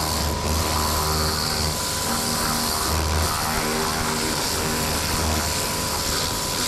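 Pressure washer running steadily, its motor and pump giving a low drone while the lance's water jet hisses against the boat's fibreglass cabin side.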